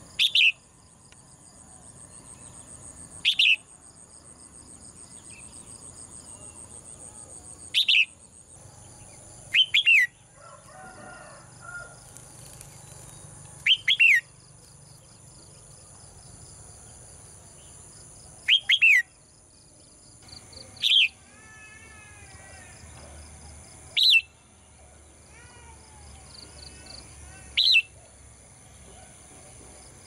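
Red-whiskered bulbul giving loud, sharp, falling chirps every few seconds, about nine in all, some in quick pairs. A steady high insect buzz runs behind, and softer warbling comes in during the second half.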